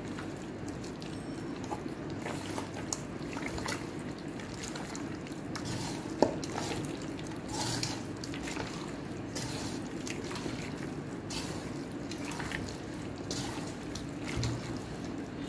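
Wet squelching and squishing of a hand kneading raw meat in a yogurt-and-spice marinade in a metal bowl, in irregular strokes over a steady low hum. A sharp click about six seconds in.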